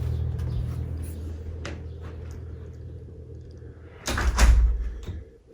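A door being moved and shut, with a heavy thud about four seconds in, after a low steady rumble that fades away.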